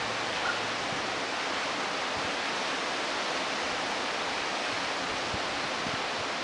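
Steady, even rushing hiss of wind moving through the trees and leaves.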